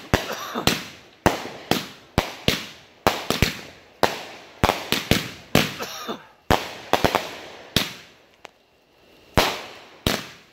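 Consumer aerial fireworks from a finale board firing in rapid succession: sharp bangs about twice a second, each trailing off, with a short lull near the end before two more bangs.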